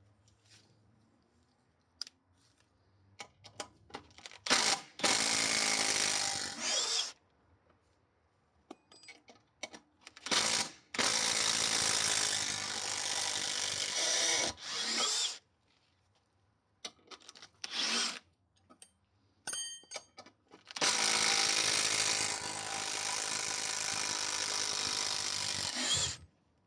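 Parkside Performance PDSSAP 20 Li D3 20V cordless impact wrench driving large screws in three long runs, each a few seconds long and ending in a brief rising whine, with short clicks and knocks in the pauses between.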